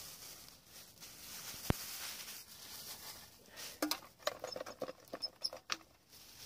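Light clicks, taps and rustling from handling camp cooking gear and food, with one sharp click about two seconds in and a busier run of taps in the second half, over a steady faint hiss.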